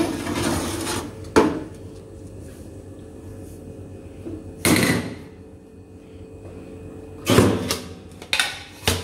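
A metal baking tray scraping and knocking as it is slid out of a countertop electric oven with a cake tin on it, then handled and set down: a knock about a second in, a longer scrape midway, and a cluster of knocks and scrapes near the end.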